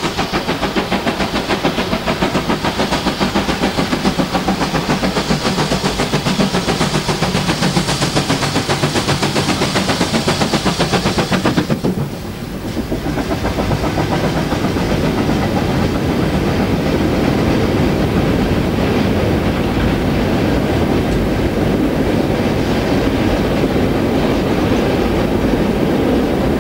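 GWR 2-8-0 steam locomotive No. 3850 working hard on a mineral-wagon freight, its exhaust beating fast and evenly with plenty of steam hiss. About twelve seconds in the beat drops away suddenly, and a steady clickety-clack rumble of the wagons running over the rail joints takes over.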